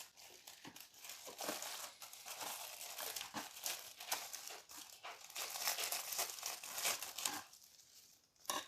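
Thin plastic bag holding plastic model kit parts being handled, crinkling and crackling steadily for about seven seconds, then going quiet near the end.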